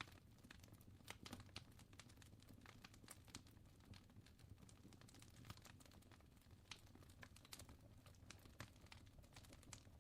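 Faint fire crackling: irregular small pops and snaps over a steady low rumble.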